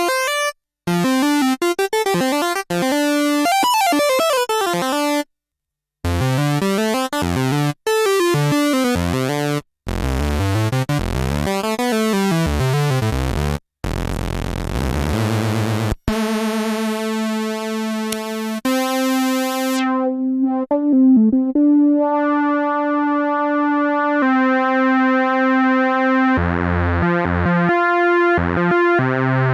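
Yamaha CS01 analog monosynth playing bright, buzzy tones that sweep rapidly up and down in pitch, cutting out briefly a few times. About halfway through it settles into held notes with a darker, mellower tone, and a low pulsing bass note comes in near the end.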